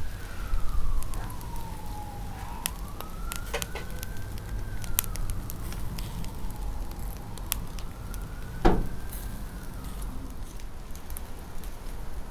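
Emergency vehicle siren wailing, its pitch slowly rising and falling in sweeps of a few seconds each. Scattered sharp crackles sound over it, with one louder knock about nine seconds in.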